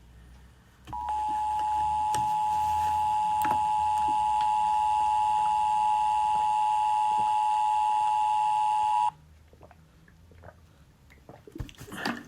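Emergency Alert System attention signal: two steady tones sounded together just under 1 kHz, starting about a second in, holding for about eight seconds and cutting off abruptly. It is the alert that precedes an emergency broadcast message.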